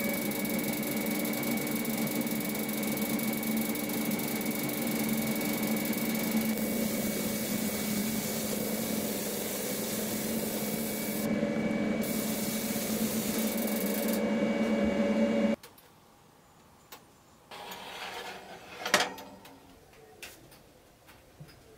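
Powder-coating gun spraying, with a steady hiss of air and motor hum from the coating equipment. It cuts off abruptly about 15 seconds in, and a couple of short knocks follow.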